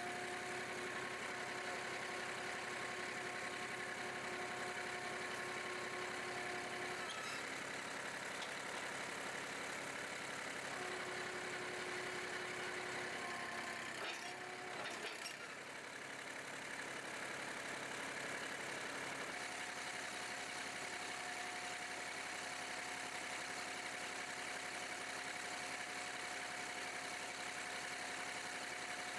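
Massey Ferguson 2605 tractor engine running steadily, its pitch shifting a few times, with a brief drop in level about halfway through.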